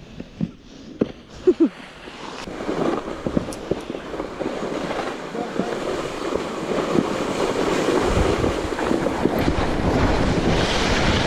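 Sled sliding down a snowy slope: a rushing scrape of snow that grows steadily louder as the sled picks up speed, with wind buffeting the microphone, heaviest in the last few seconds.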